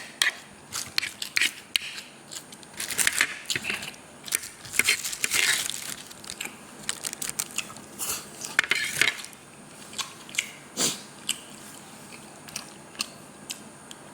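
Close-miked eating sounds: someone chewing a mouthful of noodles, with many short clicks and wet smacks that die down after about ten seconds.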